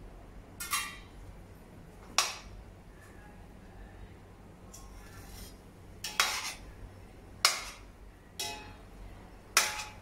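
Metal ladle clanking and scraping against a stainless steel pot while mixing rice: about six sharp clanks at uneven intervals, with a softer scrape in between.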